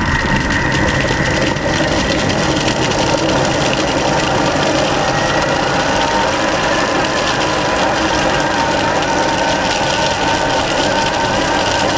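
Thermomix-style kitchen robot blending at high power, its motor and blades running with a steady whir and a faint whine, as it purées dates and chistorra.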